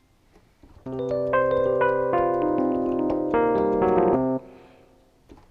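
Yamaha MX49 synthesizer keyboard playing a keys voice. About a second in, notes are added one after another into a held chord, which stops abruptly about four and a half seconds in.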